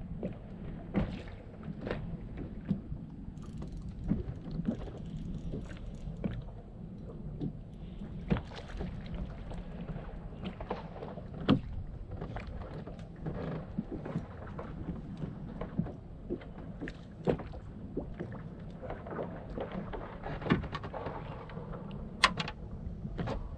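Small waves lapping and slapping against the fiberglass hull of a bass boat, with scattered knocks and clicks on the boat throughout and a sharper knock near the end.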